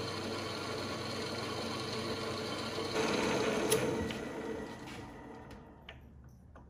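Metal lathe running steadily, then switched off about five seconds in and spinning down to a stop. A sharp click sounds a little before the spin-down, and a couple of light clicks follow near the end.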